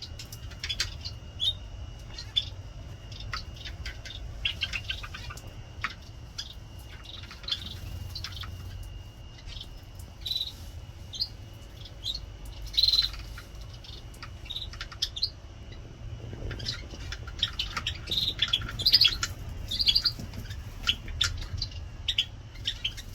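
Small aviary birds chirping and calling, with short high chirps scattered throughout that grow busier over the last third, over a low background rumble.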